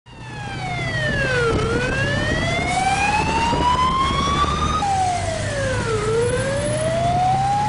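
A siren wailing in slow sweeps: its pitch falls, climbs for about three seconds, drops suddenly and climbs again. A steady low hum runs underneath.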